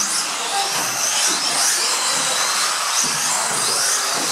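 Several electric radio-controlled off-road cars racing together. Their motors whine over one another, each sliding up and down in pitch as the cars speed up and slow down.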